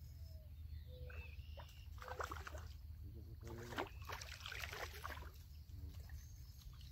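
Water splashing in two bouts, a short one about two seconds in and a longer one from about three and a half to five seconds, with a few faint bird chirps.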